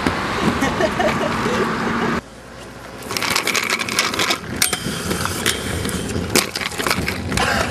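Inline skate wheels rolling over rough pavement as a steady rush of noise. After an abrupt cut, a rapid run of clacks and knocks follows, with a few brief high squeaks, as the skates' frames land on and grind along a metal rail.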